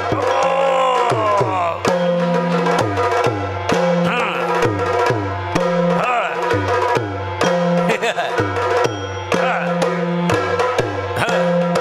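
Yakshagana dance music: fast, rhythmic drumming on chende and maddale, whose deep strokes alternate between two pitches, with clicking hand-cymbal beats over a steady drone.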